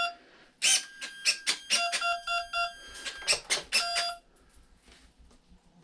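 A foam RC T-28 Trojan warbird's electronics are powered up, giving a run of short electronic beeps mixed with sharp clicks. These are its startup and arming tones, with a quick burst of four even beeps about two seconds in. The beeping stops about four seconds in.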